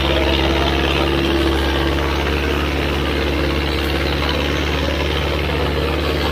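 ACE 6565 tractor's diesel engine running steadily under heavy load as it drags a double harrow through soft soil, with a constant, unchanging pitch.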